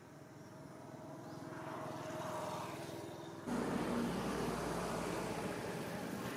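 Background noise of a motor vehicle, growing louder over the first few seconds with a faint steady engine tone. About three and a half seconds in, the sound changes abruptly to a louder, steady rumbling outdoor background.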